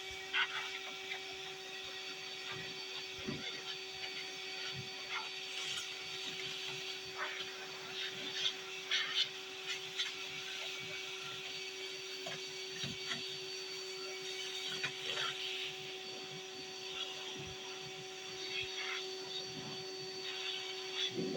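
Vacuum cleaner motor running steadily, used as a blower on snow: an even whine over a hiss of rushing air, with irregular short clicks and knocks.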